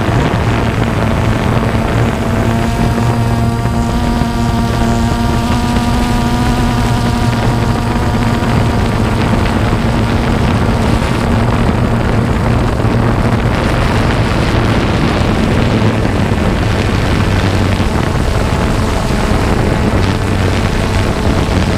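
Quadcopter drone's electric motors and propellers heard from on board: a loud, steady buzzing hum, with a higher whine that comes in for several seconds in the first half and then fades.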